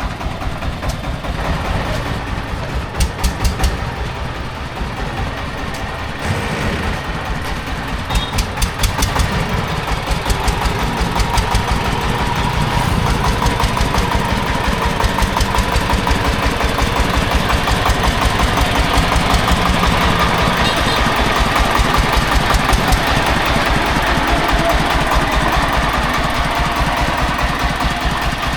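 Diesel engine of a digger or loading truck running with an even, pulsing beat. It gets louder a few seconds in, then holds steady.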